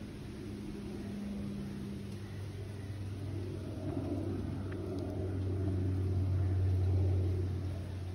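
Low, steady rumble of a motor vehicle's engine, growing louder about six seconds in and then fading.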